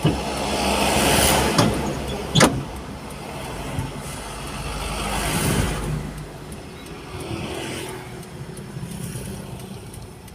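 Motor vehicles passing by: a swell of road noise rises and fades in the first two seconds, and another around five seconds in. Three sharp knocks come in the first few seconds.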